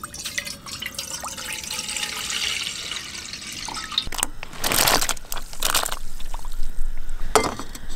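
Water poured from a bottle into a metal saucepan on a portable gas stove, a steady stream at first with a few louder gushes past the middle.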